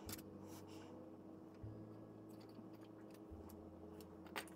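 Faint small clicks and ticks of tweezers and thread as a plastic model ship is rigged by hand, with one sharper click near the end, over a faint low hum.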